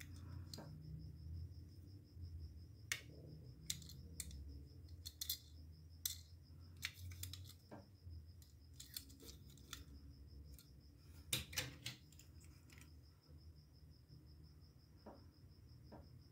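Faint scattered clicks and taps of a small die-cast toy garbage truck handled and turned over in the fingers, with a quick cluster about two-thirds of the way through, over a low steady hum.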